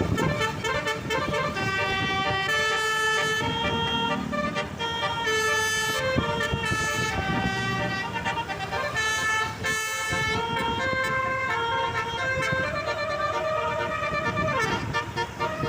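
Bus basuri horn, a multi-tone musical air horn, playing a melody: a run of held notes stepping up and down in pitch with hardly a break.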